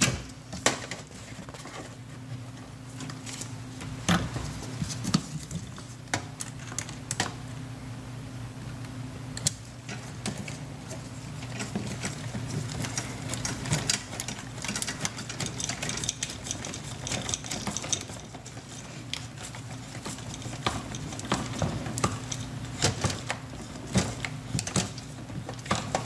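Irregular clicks, knocks and rattles of plastic and metal parts as a dishwasher's motor and pump assembly and its wiring are handled by hand, over a steady low hum.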